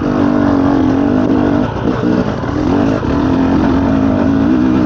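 Off-road dirt bike engine running and revving, its pitch wavering with the throttle and dipping briefly about two seconds in.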